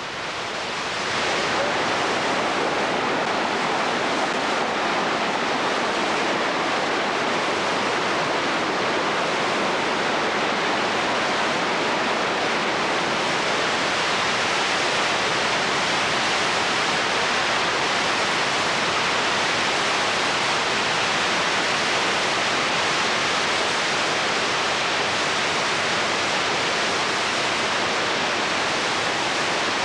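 Victoria Falls: a steady rush of water plunging into its gorge, swelling up about a second in and then holding even.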